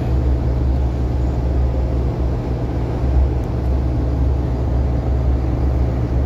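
A tugboat's diesel engine running steadily, a deep, even rumble heard from on board.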